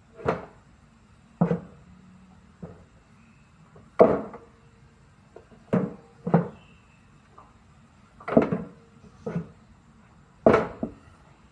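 Repeated sharp knocks of tools striking parts during a front-loading washing machine teardown: about nine blows, unevenly spaced a second or two apart.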